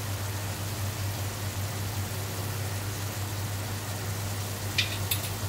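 Steady low hum with an even hiss. Near the end there are two short clinks of a small steel spoon as spice powder is spooned into the pan.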